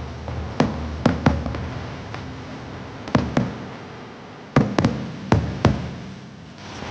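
Aerial firework shells bursting overhead: about ten sharp booms in irregular clusters, each trailing off in an echo.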